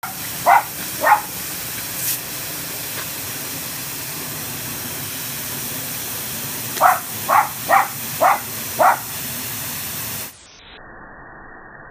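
Garden hose spray nozzle hissing steadily, with a Pembroke Welsh Corgi puppy's short sharp barks: two near the start, then five in quick succession a little later. The hiss drops away sharply about ten seconds in.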